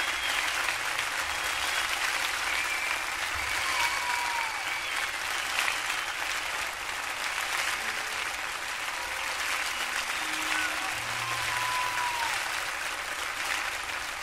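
Audience applauding steadily, with a few faint calls or whistles over the clapping.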